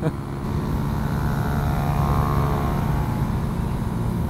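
Small single-cylinder minibike engine running at road speed, with wind rushing past the helmet-mounted microphone; the engine note rises a little about a second in and eases back down after the middle.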